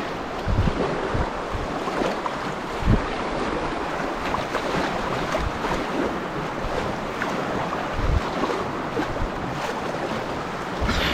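Steady rush of river water around a packraft, with wind buffeting the microphone and a few low thumps.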